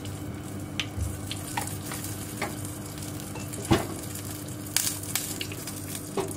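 Ghee melting and sizzling in a small nonstick frying pan over a gas flame, with scattered small crackles and pops. There is one louder knock a little before four seconds in. The ghee is heating up for frying cashews and raisins.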